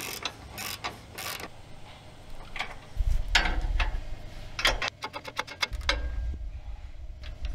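Fine-tooth hand ratchet clicking in short strokes as bolts are tightened, with a quick run of rapid clicks about five seconds in. A low rumble comes and goes underneath.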